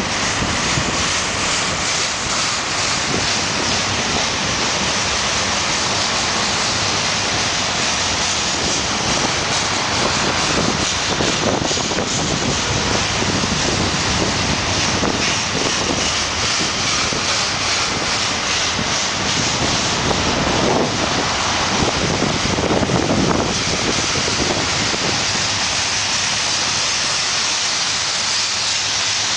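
Double-stack intermodal container train rolling past: steady noise of steel wheels on rails, mixed with wind buffeting the microphone.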